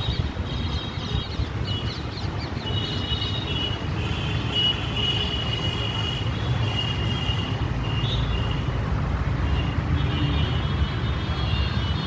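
Outdoor ambience: a steady low rumble, like distant road traffic, with birds chirping high over it on and off.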